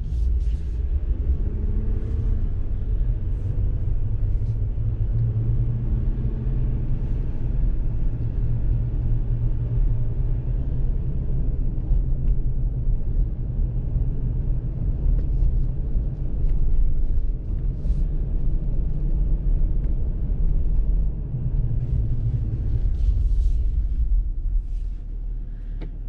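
Steady low rumble of a 2018 Jeep Wrangler JL Moab driving on its stock BF Goodrich Mud-Terrain tires, heard from inside the cabin: tire roar and drivetrain hum, easing slightly near the end.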